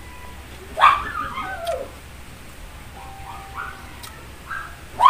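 Pet dog whining to be given leftovers: a loud whine sliding down in pitch about a second in, a few softer whimpers after it, and another falling whine beginning near the end.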